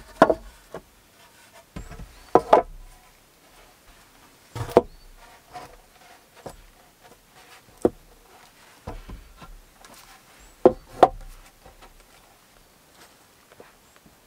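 Wooden poles knocking against one another and the log frame as they are laid into a pole floor: a series of sharp wooden knocks, a second or more apart, some in quick pairs.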